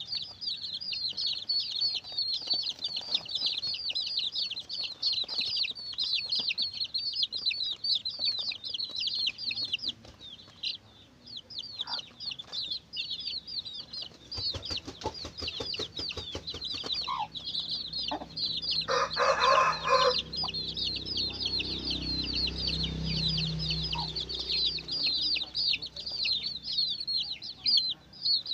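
A brood of domestic chicks peeping continuously in high, rapid cheeps, with a short lull about ten seconds in. A mother hen clucks low among them, and a louder, fuller call comes about two-thirds of the way through.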